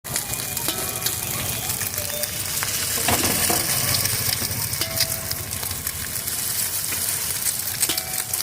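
Chicken fried rice sizzling and frying in a hot wok, with a metal spatula clicking and scraping against the pan as it is stirred.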